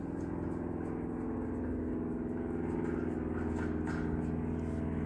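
Electric motor running with a steady hum, with a few faint clicks of handling over it.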